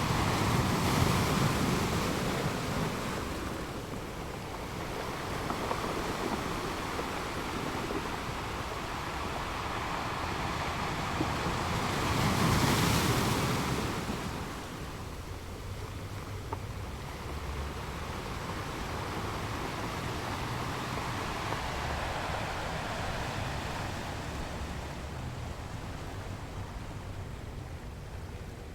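Sea waves breaking and washing onto the shore, swelling loudest about twelve seconds in before easing off; wind on the microphone.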